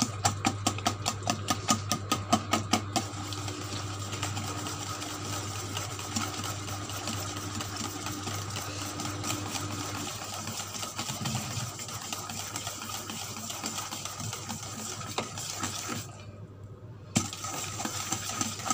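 Wire whisk beating egg into a thick choux-style dough in a stainless steel bowl by hand. It clicks rapidly against the metal at about five strokes a second for the first three seconds, then settles into a softer, steady scraping and stirring.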